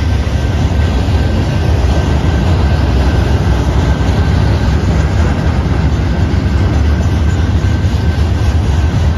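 Norfolk Southern manifest freight train's loaded gondola cars rolling past: a steady, heavy rumble of steel wheels on rail, with a faint steady high whine over it.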